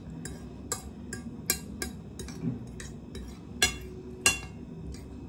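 A metal fork clinking and scraping against a plate while picking up noodles: a string of short, sharp clicks, the two loudest about three and a half and four seconds in.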